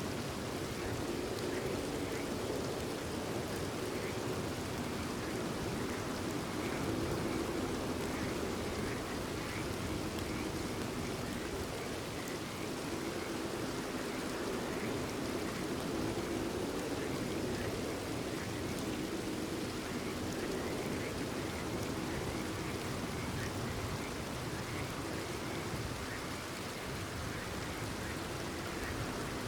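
Steady rain falling, with frogs croaking repeatedly through it.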